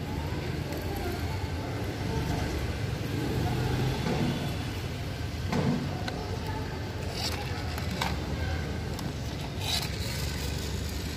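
A small plastic toy garbage truck being handled and pushed across the floor, with a few short plastic clicks and scrapes over a steady low hum.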